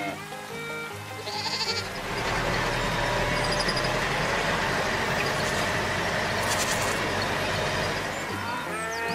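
Cartoon tractor engine sound effect running steadily as the tractor drives past, starting about two seconds in and fading near the end, over background music.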